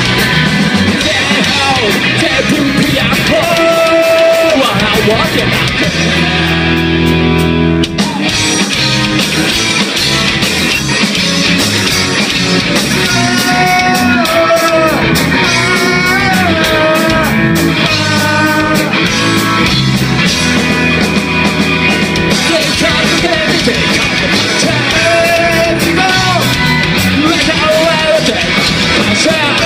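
Live rock band playing loud with electric guitars, bass guitar and drums, and a male singer singing over them. The band thins out briefly about six seconds in and comes back in full about two seconds later.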